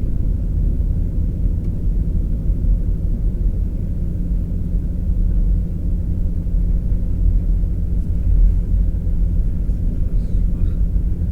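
Steady low rumble of a pickup truck's engine and tyres while driving, heard from inside the cabin; a steady low hum joins about four seconds in.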